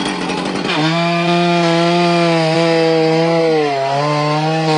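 Two-stroke chainsaw running hard as it cuts into a coconut palm stump. Its engine note drops as the chain bites into the wood, under a second in, and sags again briefly a little before four seconds in.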